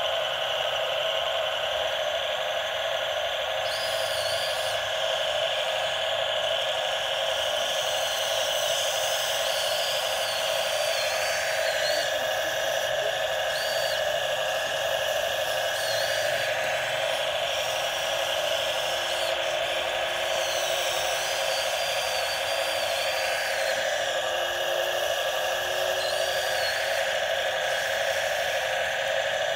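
Huina RC excavator's motors whining steadily while its boom, arm and bucket dig into a dirt slope. The whine changes a few times as different movements start and stop.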